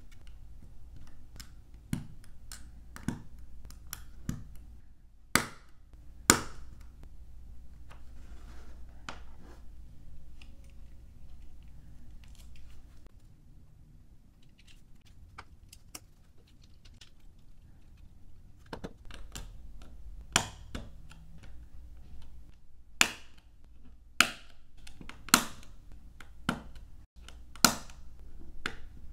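LEGO bricks being pressed together and handled: irregular sharp plastic clicks and snaps, with a quieter stretch of soft handling in the middle and a run of louder snaps near the end.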